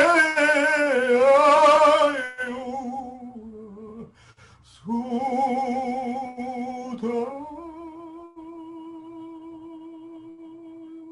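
A man's voice singing long, drawn-out vowel tones as a chant, loud with a wide vibrato at first. After a short break about four seconds in, he sings lower held notes, then settles into one steady, quieter hummed note.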